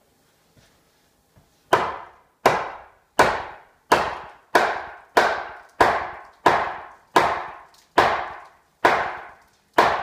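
A hammer striking a wooden 2x4 stud to knock it into place in the framing. There are twelve steady blows, about one every two-thirds of a second, starting almost two seconds in, and each one rings briefly.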